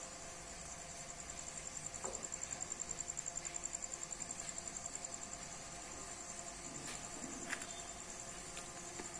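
A cricket trilling steadily in a fast, even high-pitched pulse, over a faint steady hum and a few light clicks.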